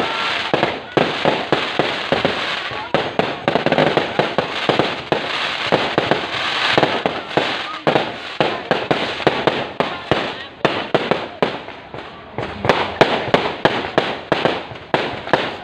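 Fireworks going off in rapid succession, a dense run of sharp bangs and crackles several times a second.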